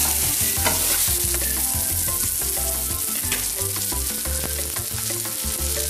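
Banana halves frying in melted butter in a frying pan: a steady, crackling sizzle.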